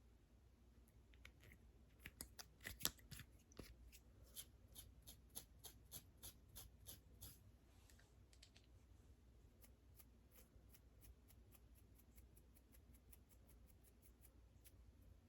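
Close-up, quiet scratching of a flaky, dandruff-covered scalp: crisp strokes about two or three a second, loudest a couple of seconds in. After that they become lighter, faster scratches.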